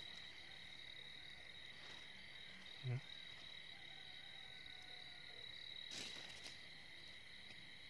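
Faint, steady chirring of crickets at night, holding two constant high pitches. A single short low thump about three seconds in, and a brief rustle of grass being brushed near six seconds.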